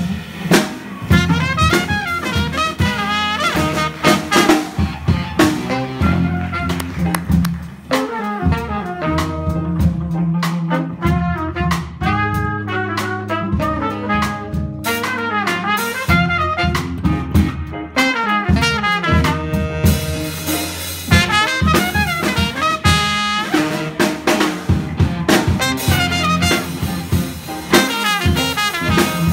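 Small jazz combo playing live: trumpet and saxophone carrying the melody over electric bass, electric guitar and drum kit, the band thinning out for a stretch in the middle before the full group returns.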